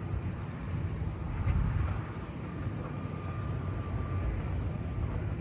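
Wind buffeting the microphone: an uneven, gusting low rumble. A faint thin steady tone sounds through the middle.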